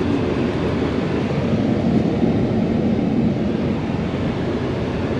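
Steady low rumble of a four-wheel-drive pickup truck driving through snow, heard from inside the cab: engine and tyre noise.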